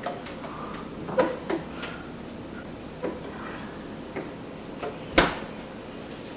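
Side-by-side refrigerator door being opened, with a few light clicks and knocks as things inside are moved, then the door shut with a single loud knock a little after five seconds in.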